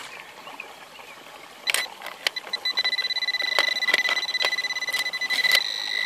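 Garrett AT Gold metal detector sounding a steady high beep, starting about two seconds in and holding: the detector signalling a buried metal target under the coil as it is pinpointed in the creek bed. Scattered sharp clicks run through the tone, over a faint trickle of water.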